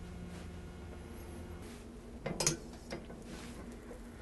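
A metal utensil clinking against a nonstick frying pan while pushing butter around, with a couple of brief knocks about halfway through and a lighter one just after, over a faint low hum.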